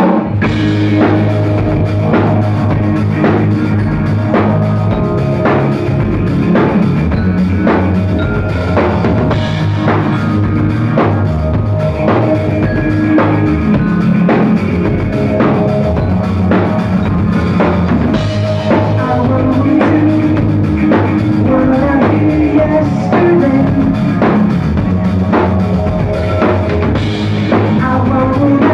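Live rock band playing: drum kit keeping a steady beat under electric guitars and bass guitar, loud and continuous.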